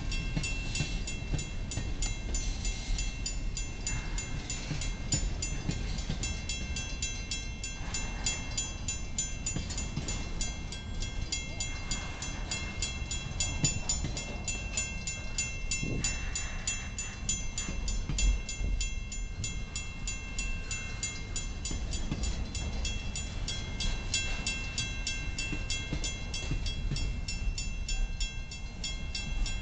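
Double-stack container freight cars rolling past: steel wheels rumbling and clattering over the rail joints. A rapid, steady metallic ringing sits on top, typical of a grade-crossing bell.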